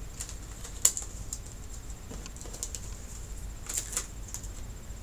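Light clicks and rustling of hands working inside an opened flat-screen TV, freeing a flat ribbon cable and its plastic clips. One sharp click about a second in and two more close together near the end.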